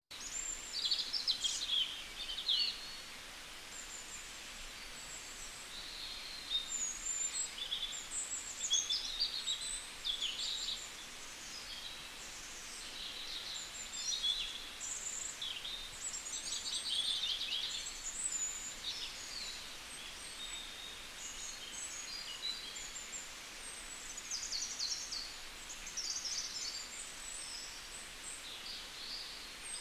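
Small songbirds chirping and trilling over and over, over a steady outdoor background hiss.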